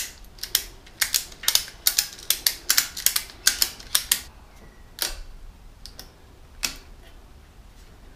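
Ratchet buckle of an endless-loop tie-down strap being worked to tighten the strap: a quick run of sharp metal clicks for about four seconds, then a couple of single clicks.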